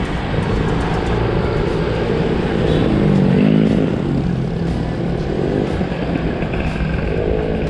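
Motorcycle engine running at riding speed along with road noise; its pitch shifts and it gets loudest about three seconds in.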